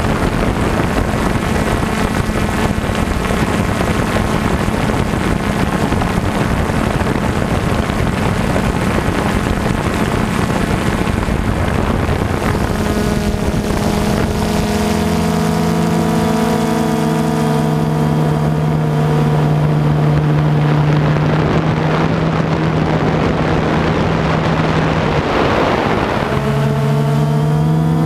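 DJI Phantom 2 quadcopter's motors and propellers running, a droning hum of several pitches that drops about halfway and climbs near the end, over wind noise.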